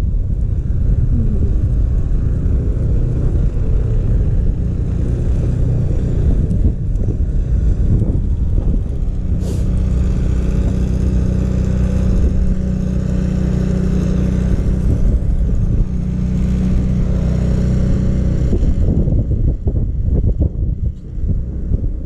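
Storm wind buffeting the microphone, with an engine running at a steady pitch for about ten seconds in the middle, dropping in pitch as it dies away.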